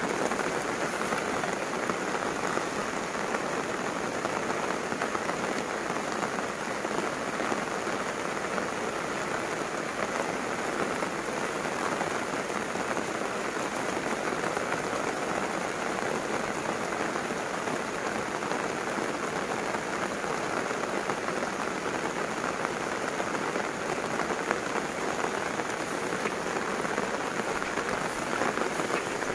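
Heavy rain falling steadily, pattering on banana leaves and on the umbrella overhead.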